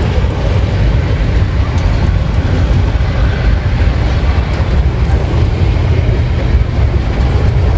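Freight train running by with a steady low rumble.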